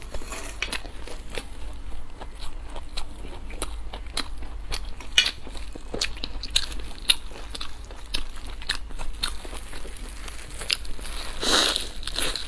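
Close-miked eating: biting and chewing into crisp-crusted stuffed buns, with a run of short crackly crunches and mouth clicks. One longer, louder crunchy bite comes near the end.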